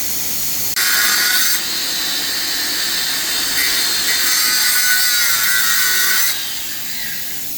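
Angle grinder cutting through steel plate: a hissy high whine that starts suddenly about a second in, sags a little in pitch under load, and stops about six seconds in, leaving a softer steady hiss.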